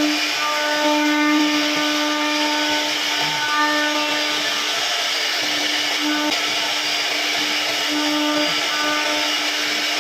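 CNC router spindle running with a steady whine while the bit carves wood, over a constant hiss of cutting. The whine grows a little stronger and weaker as the cut goes on.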